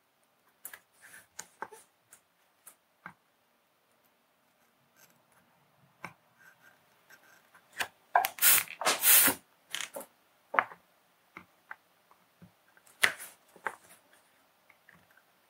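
Scattered faint clicks and taps of hand soldering work on a small circuit board, with a louder spell of scratchy rustling about eight to nine and a half seconds in and another sharp click about thirteen seconds in.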